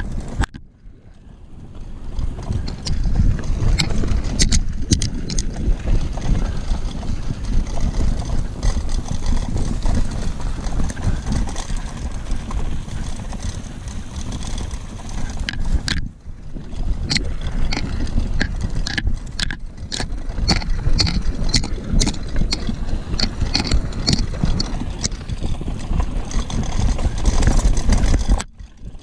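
Bicycle ridden fast over a rough gravel track: wind rumble on the microphone with the bike rattling and gravel ticking under the tyres. The noise drops away briefly near the start and again about halfway through.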